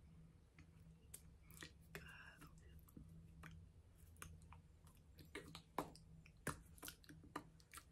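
Near silence broken by faint, irregular clicks and small taps from a person signing, a few louder ones in the second half, over a low steady hum.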